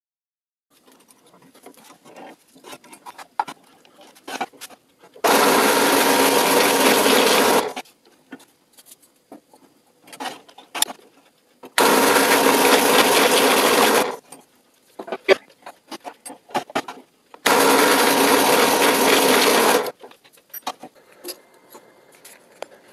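Drill press running while a spade bit bores into a small wooden block, three times, each run lasting about two and a half seconds. Light clicks and handling noises come between the runs.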